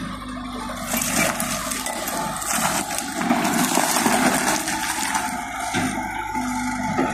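Kubota skid-steer loader's engine running steadily while its bucket dumps a load of dirt and rubble. The dirt and stones pour out with a rattling hiss from about a second in until about six seconds in.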